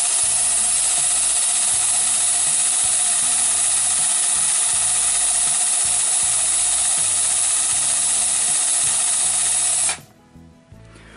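Power drill running steadily with a 4 mm bit boring into the plastic side of a black HP ink cartridge under very light pressure; it stops suddenly near the end.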